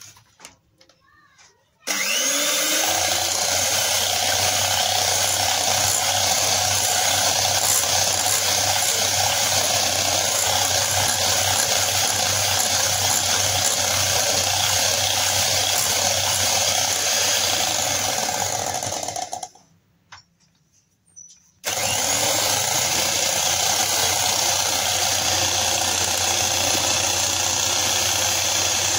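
Electric hand mixer beating vanaspati ghee and egg in a glass bowl: a steady motor whirr that starts about two seconds in, stops for about two seconds about two-thirds of the way through, then runs again.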